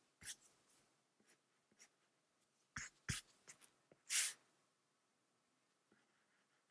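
A few faint taps and a brief scratchy stroke of a stylus on a tablet screen.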